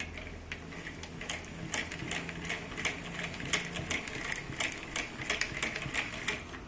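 Hand-cranked electric generator being turned, its gearing giving a fast, uneven stream of clicks and rattles over a low hum.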